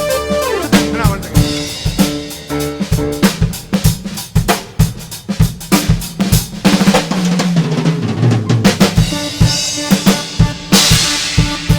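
Live drum kit played in rapid strokes and fills on snare and bass drum, over held keyboard notes and a low bass line that steps downward in the middle, with a cymbal crash near the end.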